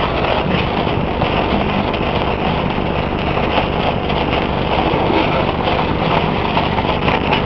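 Handheld sparkler burning, a steady fizz dense with small crackles.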